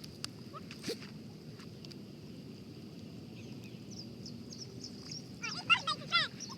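A quick run of short, loud, pitched animal calls about five and a half seconds in, over a quiet steady outdoor background.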